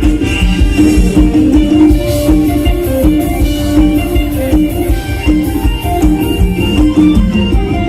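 Live mor lam band playing an instrumental passage: a plucked string lead melody over bass and a steady, driving beat.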